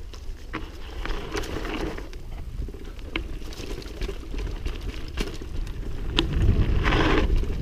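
Mountain bike rolling down a dirt singletrack: wind buffeting the microphone, with scattered knocks and rattles from the bike and tyres over bumps, and a brief louder rough hiss near the end.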